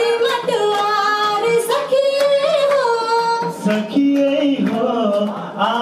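A Tharu folk song sung live into a microphone: a high voice singing a melody of held and gliding notes over music, with a few drum strokes.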